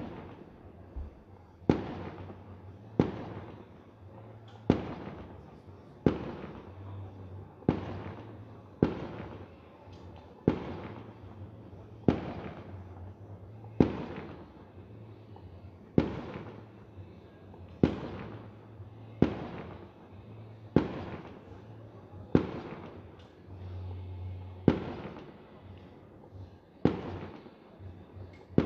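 Fireworks bursting in a steady series, one bang about every second and a half, each trailing off in an echo.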